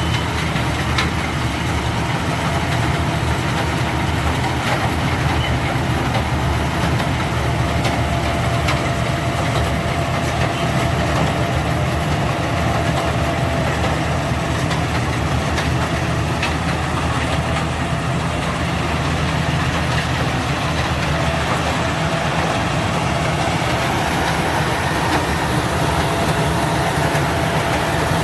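Rice combine harvester running steadily: a low, even engine drone with a faint steady whine over it.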